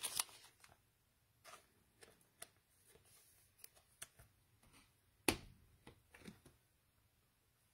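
Quiet room with faint, scattered rustles and clicks of cards and packs being handled, and one sharper tap about five seconds in.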